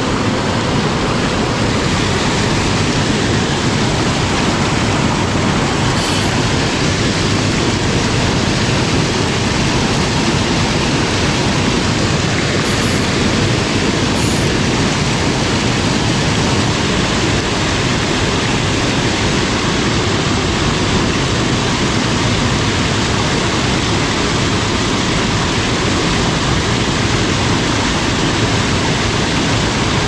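Steady rushing of a small mountain stream cascading over rocks in a low waterfall close by.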